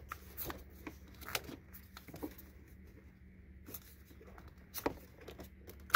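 Small plastic clicks and scrapes of a wiring-harness connector being unlatched and slid apart by hand, a scattered handful of ticks with a sharper click at the very end.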